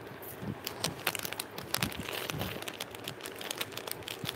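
Clear plastic jewellery packets crinkling as they are handled: a dense run of small crackles and rustles.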